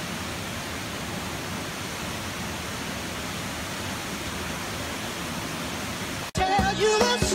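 Waterfall rushing in a steady, even roar of falling water. About six seconds in it cuts off suddenly and louder music starts.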